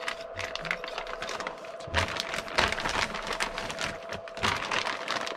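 Plastic parts bags and small kit parts being handled: a dense, irregular run of crinkles and small clicks, thicker about two seconds in and again near the end, over a faint steady tone.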